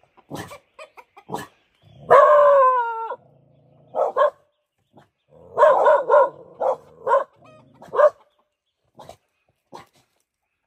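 Dogs barking in short bursts, with one longer, drawn-out bark about two seconds in that drops in pitch at its end. It is alarm barking at danger close by, which the owner takes to be a wild animal that has been attacking the chickens below.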